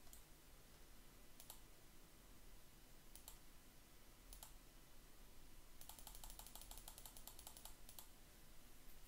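Faint clicks of a computer mouse and keyboard during data entry: a few single clicks, then a quick run of key presses for about two seconds past the middle.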